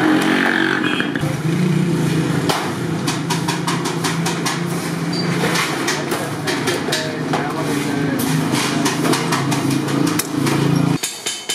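Large hand shears snipping galvanized iron sheet in a run of sharp metallic clicks, over a steady motor drone. The drone cuts off suddenly near the end and a quick, regular percussive tapping begins.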